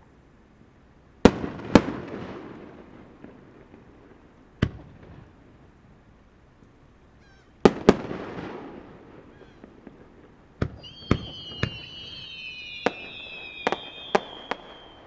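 Aerial firework shells bursting with sharp bangs. The first two pairs of bangs are each followed by a long rolling echo, and about two-thirds of the way through comes a quicker run of bangs joined by several high whistles that slowly fall in pitch.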